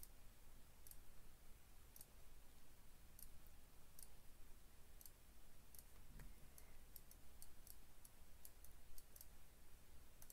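Faint computer mouse clicks, a string of short, sharp clicks at irregular intervals that come more often in the second half, over a low steady hum.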